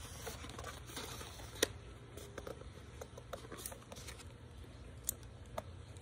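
A book being handled close to the microphone while its pages are turned: soft paper rustles and scattered light clicks, with one sharper tap about a second and a half in.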